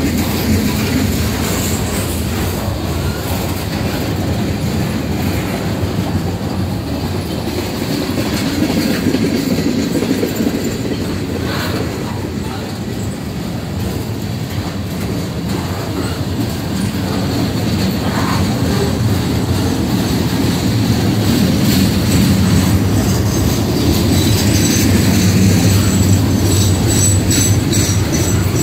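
Freight cars of a CN freight train rolling past: a steady rumble of steel wheels on the rails with occasional clanks, and a faint high wheel squeal in the last few seconds.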